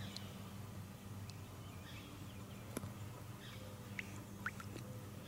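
Quiet riverside ambience: a faint steady low hum, a few scattered clicks, and two short bird chirps about four seconds in.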